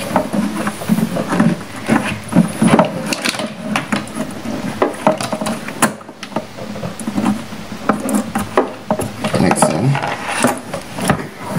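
Irregular clicks, taps and rustles of hands handling a plastic car headlight housing and its bulb wiring and connectors on a wooden table.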